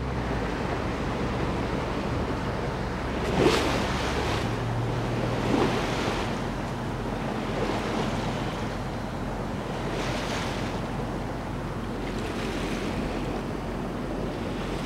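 Wind and water rushing past the hull of a small sailboat under way through choppy water, with a few louder splashes against the hull and a steady low hum underneath.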